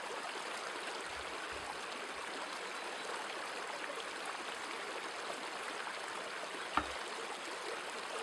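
A steady hiss, with a single sharp tap of a kitchen knife on a plastic cutting board about seven seconds in.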